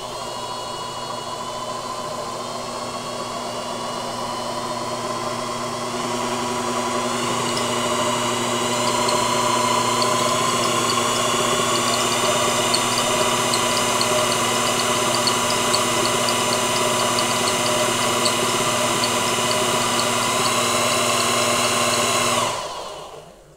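Brushed electric motor running at high speed, belt-driving a three-phase induction motor used as a generator under load while it charges a battery. It gives a steady whine over a low hum, pitch creeping slowly up, louder about seven seconds in, with faint ticking. It stops abruptly near the end.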